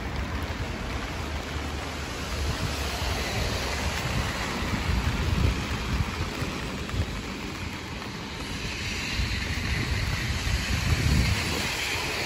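Steady rain hissing on wet pavement and road, with uneven wind rumble on the microphone. The hiss grows brighter in the last few seconds.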